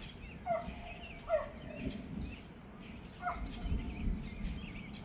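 Birds calling: several short, loud calls a second or two apart, with fainter chirps higher up, over a low rumbling background.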